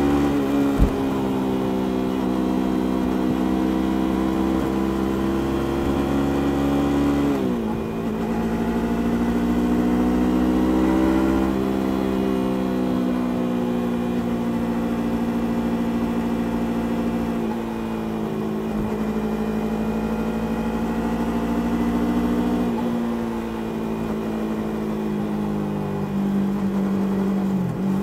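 Stock Yamaha YZF-R3's parallel-twin engine and exhaust under way, heard from the rider's seat. The note falls as the throttle closes near the start, drops sharply and climbs again about a third of the way in, and otherwise holds steady with a few smaller rises and falls as the revs change.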